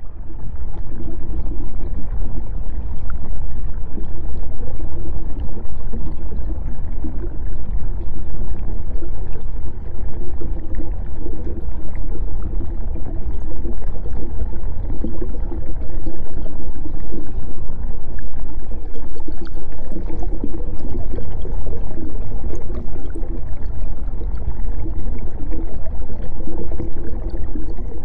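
Underwater ocean ambience track: a loud, dense, steady water rumble, strongest in the deep lows, with faint wavering tones in the middle range.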